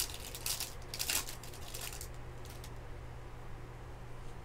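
Foil wrapper of a baseball card pack crinkling as it is torn open during the first second or so, then quieter handling of the cards, over a steady low hum.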